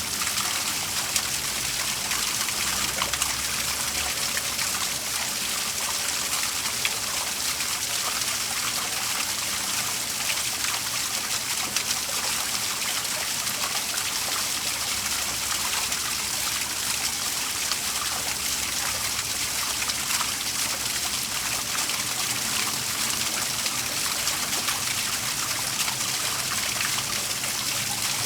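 Waterfall running steadily: an even, unbroken hiss of falling and splashing water.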